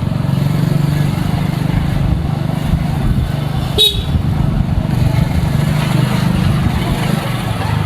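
Motor vehicle engine running steadily on the move, with a brief horn beep about four seconds in.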